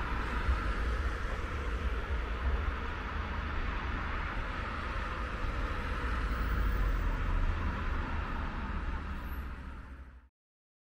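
Steady outdoor background noise beside a railway line: a low rumble under a steady rushing hiss, with no distinct event, cut off abruptly about ten seconds in.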